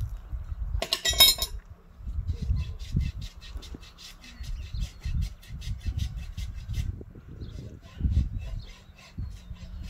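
A farrier's metal tool clanks with a short ring about a second in. Then a hoof rasp scrapes the horse's hind hoof in quick, even strokes, about four a second, which grow sparser and irregular near the end.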